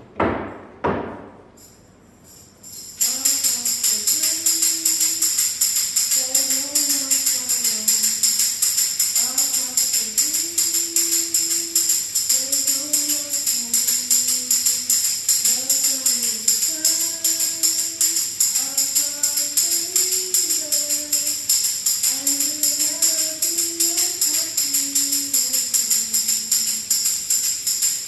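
Tambourine struck against the palm in a fast, even beat, its jingles ringing, starting about three seconds in after a couple of dull thumps. A woman's voice sings a slow, gliding melody softly over it.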